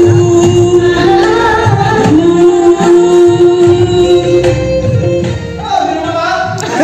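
Singing into a microphone, amplified, over music with a low, regular beat; the voice holds long notes.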